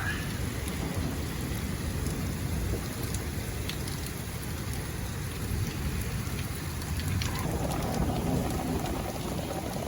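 Heavy thunderstorm rain pouring down in a steady hiss, with thunder rumbling low underneath.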